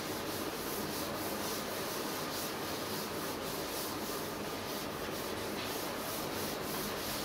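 Chalkboard duster wiping chalk off the board in quick, repeated back-and-forth strokes: a steady scrubbing rub.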